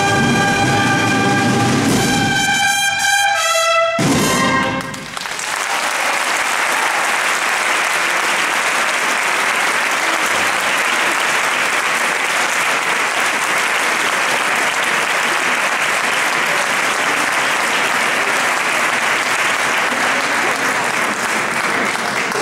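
A brass and drum band ends a piece on a held chord and a climbing run of notes, cut off sharply about four seconds in. Audience applause follows and continues, easing off near the end.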